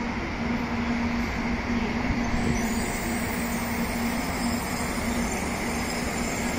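N700A Shinkansen train rolling slowly into the station platform: a steady rushing rumble of the moving train with a steady low hum under it.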